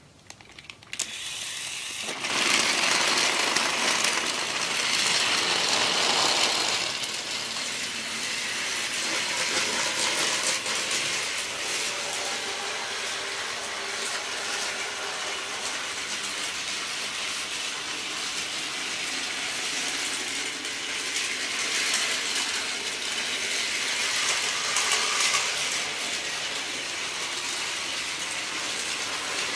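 Battery-powered Plarail (Tomy Trackmaster) toy trains running on plastic track: a steady whirring, rattling clatter of small geared motors and wheels with dense fine clicking. It starts about a second in, gets louder at about two seconds, and swells again briefly near the end.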